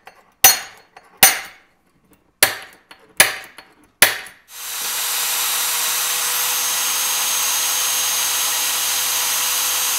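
Five sharp metallic clicks of a center punch marking hole locations on a steel mounting plate. About four and a half seconds in, an electric drill in a drill guide starts and runs steadily with a steady whine, drilling a bolt hole in the 3/16-inch steel plate.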